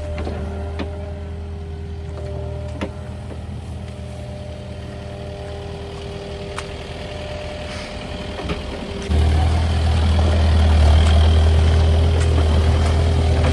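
Digger's diesel engine running steadily at idle, with a few sharp clicks; about nine seconds in it jumps louder and holds there as it takes load or is throttled up.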